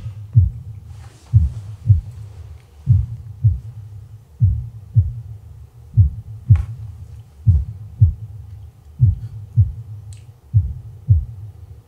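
Heartbeat sound effect: slow double thumps, lub-dub, repeating about every second and a half, used as suspense before a verdict is revealed.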